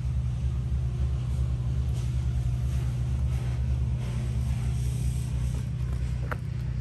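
An engine idling steadily: a low, even rumble.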